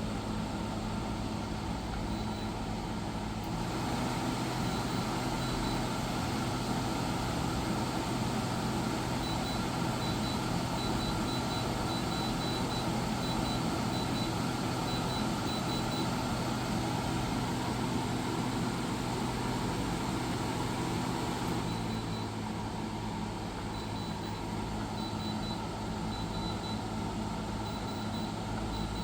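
Reiwa CP-1201RB 1.5 hp portable air conditioner running with a steady mechanical hum. The hum gets fuller and slightly louder about three and a half seconds in, and settles back near the twenty-second mark.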